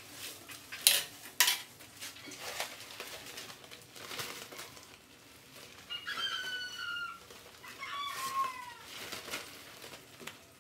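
A few sharp clicks in the first half, then two drawn-out animal squeals with falling pitch, about six and eight seconds in.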